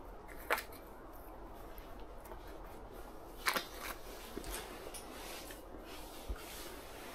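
Small handling noises from baiting a hook with dough bait from a jar: a few sharp clicks and taps, the loudest about three and a half seconds in, over a faint steady hiss.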